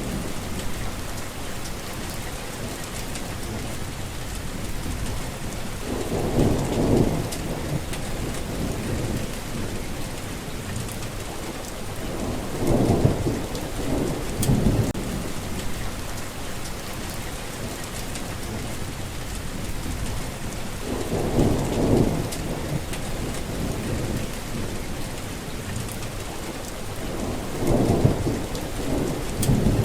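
Steady rain falling, with low rolls of thunder rumbling up and fading about five times, every six or seven seconds.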